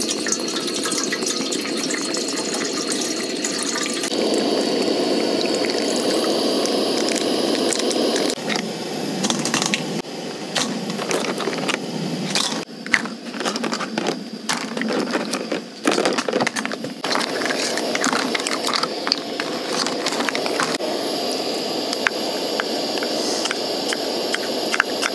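Water poured from a plastic bottle into a stainless steel pot, a steady rushing fill for about eight seconds. Then whelk shells clatter into the metal pot in a long run of clicks and knocks, and a steady rushing sound returns near the end.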